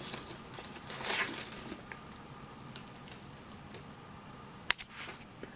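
Faint rustle of a printed paper schematic sheet being handled, with a single sharp click shortly before the end.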